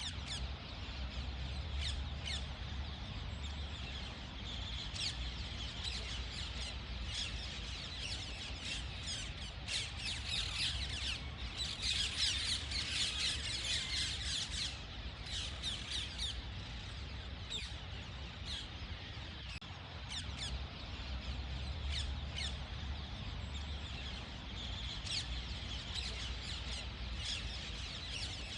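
Small parrots chattering, with many quick chirps and harsh squawks overlapping, busiest about halfway through, over a steady low rumble.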